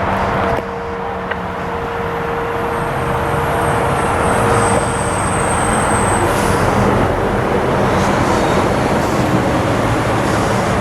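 Steady traffic noise from a nearby interstate highway, with the faint steady tone of a distant outdoor warning siren trailing off in the first half.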